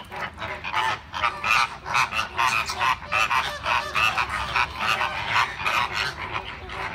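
A flock of flamingos honking, many calls overlapping in a continuous clamour that thickens about a second in.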